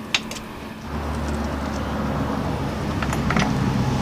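A motor vehicle engine running steadily, coming in about a second in, with a sharp click just before it.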